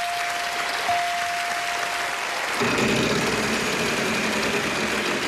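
Wheel of Fortune puzzle board chiming twice, two steady electronic tones back to back, as two letters are revealed. Then, about two and a half seconds in, a dense rapid clatter of the spinning wheel's pegs against the pointer, mixed with studio audience applause.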